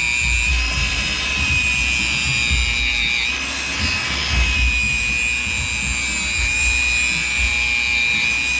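A power tool's motor running steadily with a high-pitched whine over a low rumble, its pitch wavering briefly about three seconds in.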